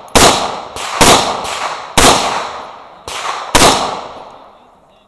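Gunshots fired during a timed match stage: four loud reports about a second apart, mixed with three fainter reports, each one echoing away.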